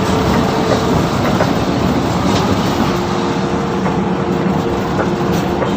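Mercedes-Benz O530 Citaro city bus running, a steady mix of engine and road noise. A faint steady whine joins about three seconds in.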